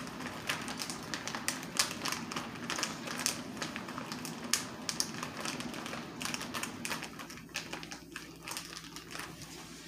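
Large resealable plastic bag being pressed shut along its zip seal: a rapid, irregular run of small clicks and plastic crinkling as the fingers work the track closed, thinning out near the end.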